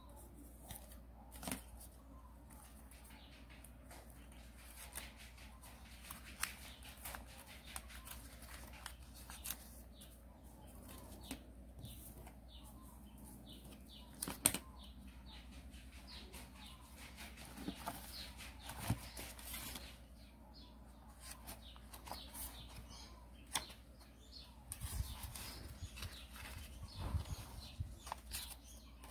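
Sheet of origami paper rustling and crinkling as it is folded and creased by hand, with scattered small taps and scrapes against a cutting mat. Near the end, book pages rustle as the paper heart is slipped over a page corner.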